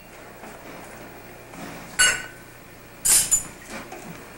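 A metal formula scoop clinks once against its container about two seconds in, with a short ring, followed a second later by a brief scraping rustle. The scoop is working powdered baby formula.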